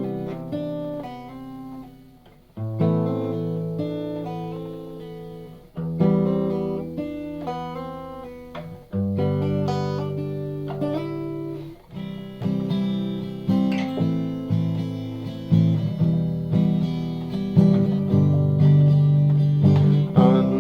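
Acoustic guitar playing a song's instrumental introduction. Chords are strummed and left to ring out, about one every three seconds at first, then coming about once a second from a little past halfway.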